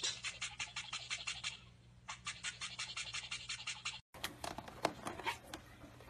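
Toothbrush bristles scrubbing at a cockatiel's beak in quick rhythmic strokes, about eight a second, in two bouts with a short pause between. After a cut about four seconds in, a few sharp clicks and taps from a caique's beak working at hard plastic.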